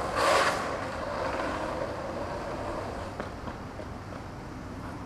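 Skateboard wheels rolling on asphalt, with a brief louder rush of noise about a quarter second in; the rolling grows fainter toward the end.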